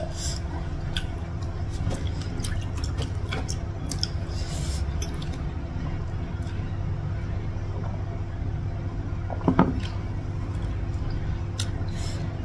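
Drinking from a stainless steel mug: small gulps and liquid sounds with scattered light clicks, over a steady low hum. One short, louder sound about nine and a half seconds in.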